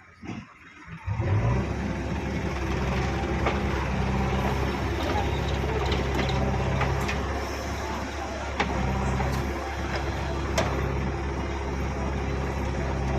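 A heavy diesel engine, of a backhoe loader or tractor, comes in about a second in and runs steadily, with a few sharp knocks here and there.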